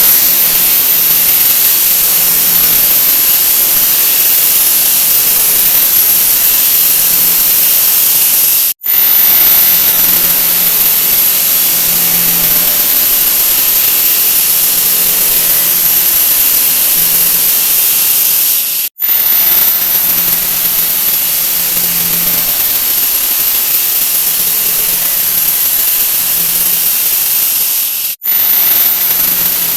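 A 'wah wah' sound effect sped up so far that it has become a loud, steady hiss. It breaks off for an instant three times, about every nine to ten seconds, as each sped-up repeat ends and the next begins.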